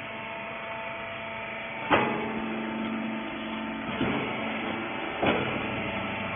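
Steady hum of a hydraulic rag baler's motor running. Three sharp knocks sound over it, the loudest about two seconds in and two weaker ones about four and five seconds in.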